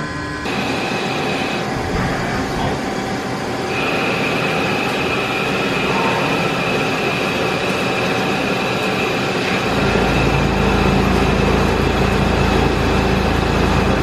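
Machine shop machinery running: a steady, dense mechanical noise, joined a few seconds in by a steady high whine and about ten seconds in by a low rumble.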